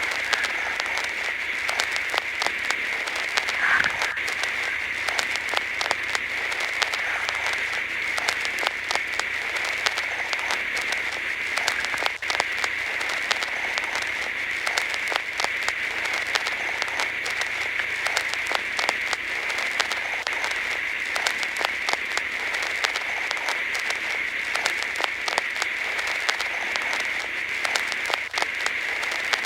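Crackling static: a steady hiss thick with fast, irregular clicks and pops, like a dead broadcast or radio channel.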